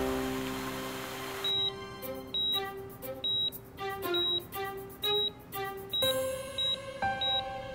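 A hospital patient monitor beeps steadily at one high pitch, roughly once every two-thirds of a second, over soft background music. A rush of noise fades out over the first second and a half before the beeps begin.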